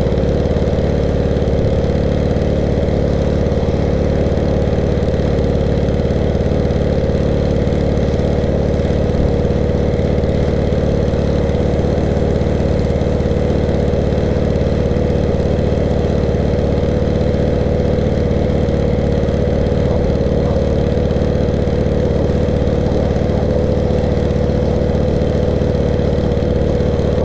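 Petrol-engine pressure washer (water blaster) running steadily, an even engine drone with a steady hum that does not change.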